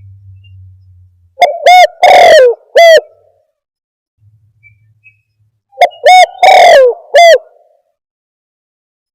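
Spotted dove (tekukur) cooing from a lure-call recording for trapping doves. There are two phrases of a few short coos, each with one longer falling note, the first starting about a second and a half in and the second near six seconds, with silence between. The recording is played so loud that the coos clip.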